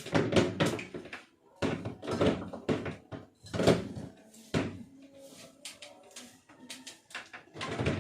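Knocks and clatter of hands handling the base and fittings of an LED ceiling light: a quick run of bumps in the first half, a couple more later, and another cluster near the end.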